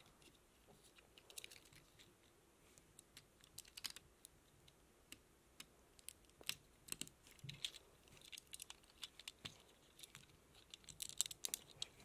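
Faint, irregular clicks and taps of plastic Lego bricks being handled and pressed onto one another.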